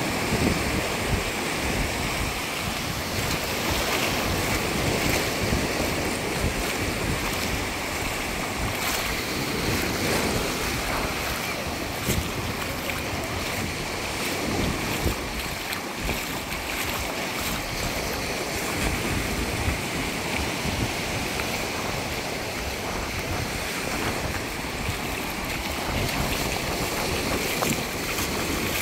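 Small surf breaking and washing up a sandy beach in a steady wash of sea noise, with wind buffeting the microphone in a low, fluttering rumble.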